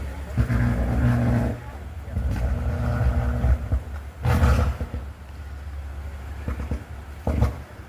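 A motor vehicle engine running in the street, a steady low hum that fades in and out. A short, loud rushing burst comes a little after four seconds in, and a smaller one near the end.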